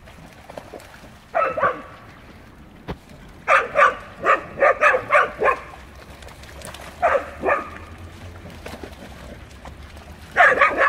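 Dog barking in short runs during rough play. A couple of barks come about a second in, a quick string of about eight barks comes around the middle, two more follow later, and a loud burst comes right at the end.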